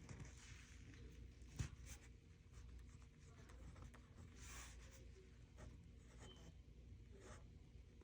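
Faint pen strokes scratching on paper while writing by hand, with a single light tap about a second and a half in.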